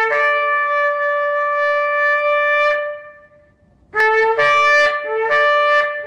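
A horn blown: one long blast that jumps from a lower note up to a higher one and holds, dies away, then after a pause a run of shorter blasts begins, each sliding from the lower note up to the higher.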